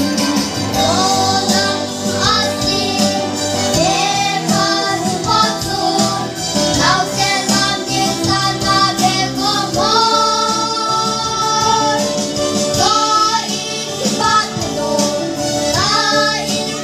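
Young girls singing a song together into microphones, amplified through a PA, over steady instrumental accompaniment.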